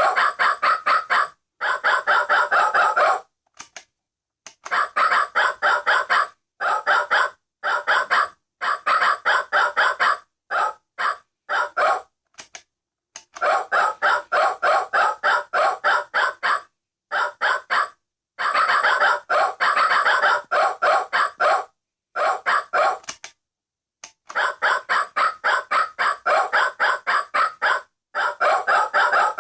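Vintage singing dog alarm clock's alarm sounding: a rapid, clucking string of pitched pulses, about five a second. It comes in runs of one to a few seconds, broken by short pauses.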